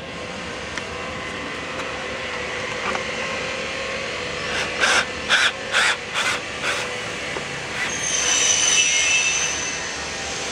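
Cordless drill driving screws into a door sash beside the handle, running in several short bursts around the middle. A high whine follows near the end, over steady factory background noise.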